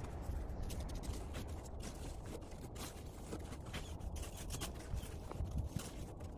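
A hand carving tool scratching lettering into packed snow in short, irregular strokes, over a low steady rumble.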